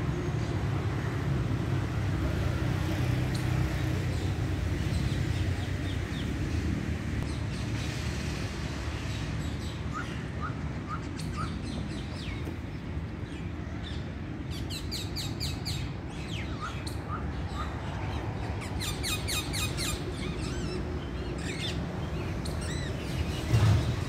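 Parakeets calling: a few short chirps around the middle, then two bursts of rapid, screechy calls in the second half, over a steady low background rumble.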